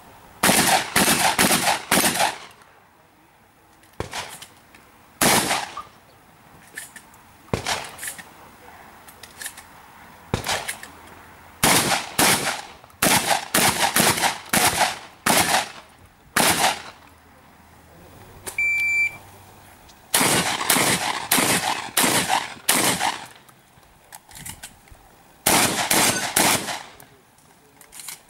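Shotgun shots, some fired singly and others in quick strings of several, with short pauses between strings.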